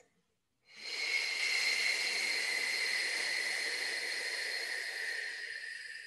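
A woman's long, slow exhale, a steady breathy hiss lasting about five seconds that fades away at the end.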